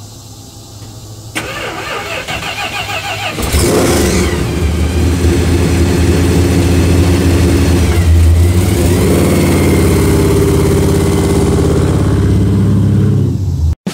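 The supercharged V8 of a 1967 Dodge Coronet 440 starts up, catching about a second and a half in. It then runs loud with revving as the car pulls away, easing briefly once midway. The sound cuts off abruptly near the end.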